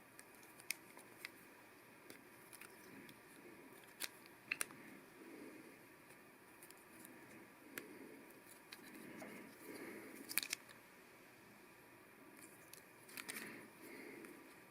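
Faint, scattered clicks and soft rustling of plastic LEGO Technic pieces being handled and pressed together, the sharpest clicks about four and a half and ten seconds in.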